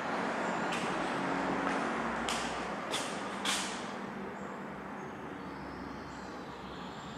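Steady street traffic noise heard through an open balcony door, with a few short hisses about one to three and a half seconds in.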